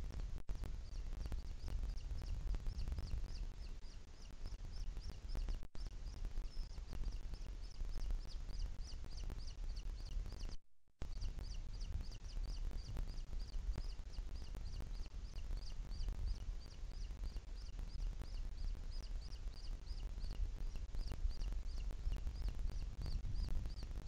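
Booted eagle chick's high-pitched begging peeps in a rapid, even series of about three to four a second, the call of a nestling asking to be fed, over a low steady rumble. The sound cuts out completely for a moment about halfway through.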